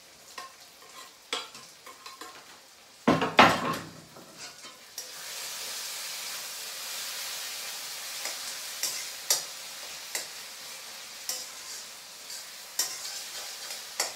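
Chopped coriander stems scraped off a wooden chopping board with a knife into a wok, a loud clatter about three seconds in. From about five seconds a steady sizzle of food frying in the wok, with a spatula knocking against the wok now and then as it is stirred.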